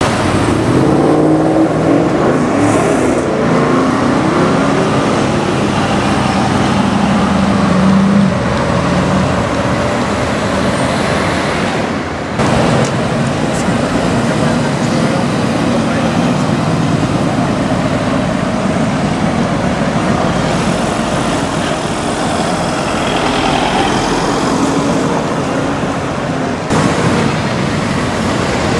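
Mercedes-AMG V8 exhaust across a few cut-together street clips: revving, with the pitch climbing about eight seconds in, then pulling away past a talking crowd and traffic. The sound changes suddenly about twelve seconds in and again near the end, where the clips are cut.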